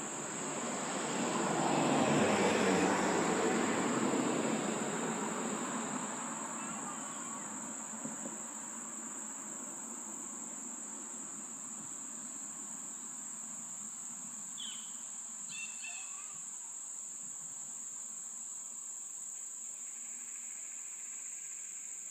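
A steady high-pitched trill or whine runs throughout. A broad rushing swell of noise rises over the first two seconds, peaks around two to four seconds in and fades by about six seconds.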